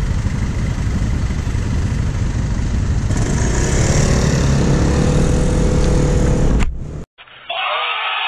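Yamaha NMAX scooter riding in traffic, its engine and road noise growing louder about three seconds in as it pulls away. Near the end the sound cuts off suddenly, and a crowd's noise from another recording starts.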